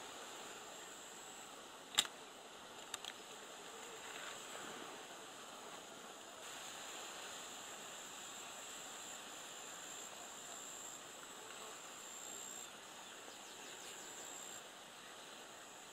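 Quiet outdoor ambience of steady, high-pitched insect chirring over a faint hiss, with one sharp click about two seconds in and two fainter ticks a second later.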